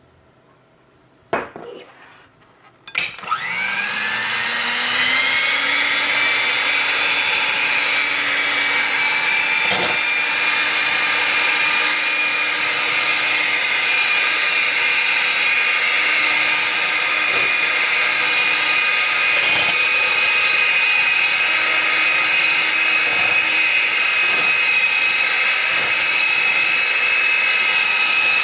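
Electric hand mixer beating egg whites with sugar: after a couple of short knocks, the motor switches on about three seconds in, whines up to speed over a couple of seconds, then runs steadily.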